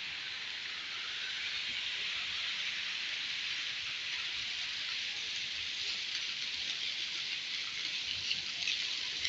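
Steady hiss of falling, splashing water, growing slightly louder about a second in.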